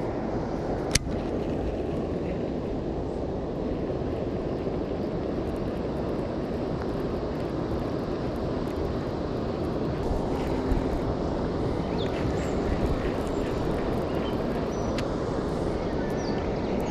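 Waterfall roaring: a steady rush of falling water, heavy in the low end. A single sharp click about a second in.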